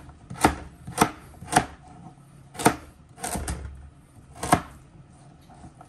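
Kitchen knife chopping carrots into cubes on a cutting board: about six separate sharp chops at an uneven pace, stopping a little over halfway through.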